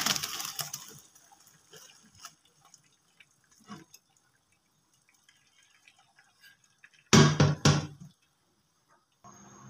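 Boiled rice and its cooking water poured from a steel pot into a stainless steel colander in a sink: the rush of water tails off within about a second, then faint dripping as the rice drains. A short clatter of metal about seven seconds in.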